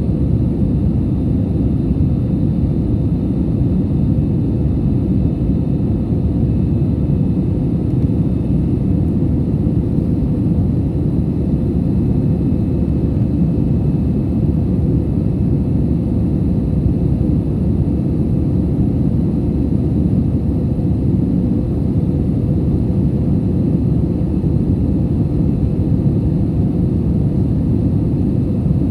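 Airliner cabin noise: a steady low rumble of engines and rushing air, with a faint steady hum over it and no change in pitch or loudness.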